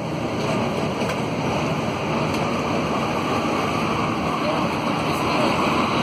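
Concarril NS-88 rubber-tyred metro train heard from inside the car as it pulls out of a station: a steady rushing running noise that grows louder as it gathers speed.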